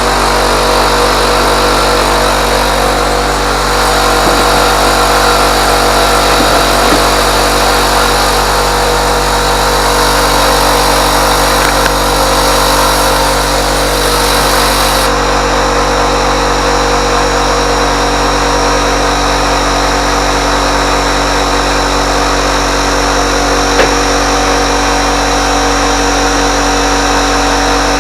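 Power tool motor running steadily under load, most likely the saw cutting into the tractor door's sheet metal. The highest hiss drops away about halfway through, and there is one sharp click near the end.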